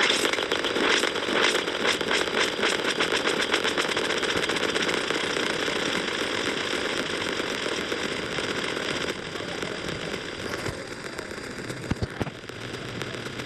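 Fireworks crackling: a dense run of rapid pops that thins out and drops in level about nine seconds in, with a couple of low thumps near the end.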